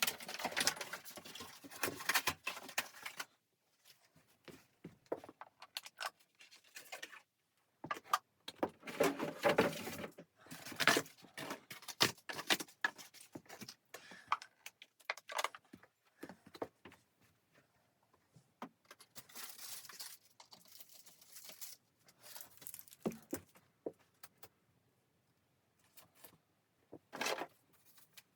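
Intermittent rustling, clinking and knocking of things being handled in a small room, in irregular bursts with quiet gaps.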